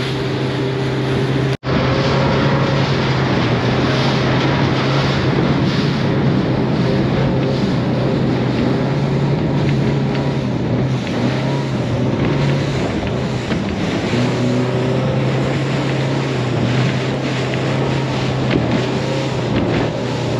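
Motorboat running at speed: a steady low engine drone under wind buffeting the microphone and water rushing past the hull. A brief dropout about a second and a half in.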